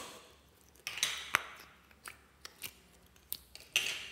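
Slime being squeezed and stretched by hand, giving a string of irregular sharp sticky clicks and pops, several close together about a second in and more near the end.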